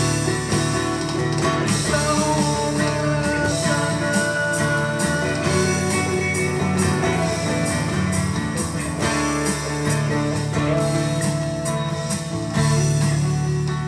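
Guitar in DADGAD tuning playing long, ringing held notes over a steady beat from an electronic drum kit through PA speakers.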